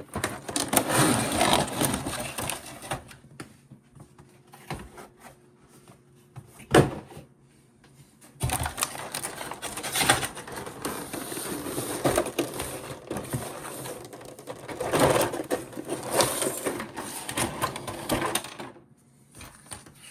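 Toy packaging being handled: cardboard and plastic rustling, scraping and clattering in irregular bursts, with one sharp knock about seven seconds in.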